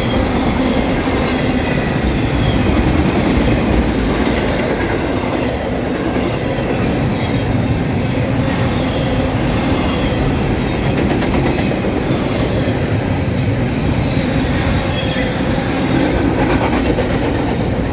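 Norfolk Southern freight train rolling past, a steady rumble and clatter of wheels on rail, with faint high wheel squeals.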